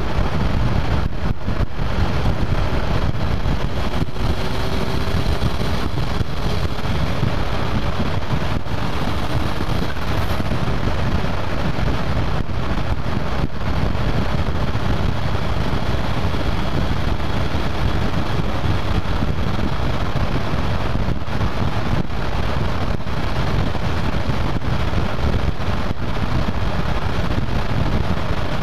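TCB Rabtech 500 Turbo vehicle driving at a steady speed: engine and road noise mixed with heavy wind on a hood-mounted microphone, with no clear change in pitch or level.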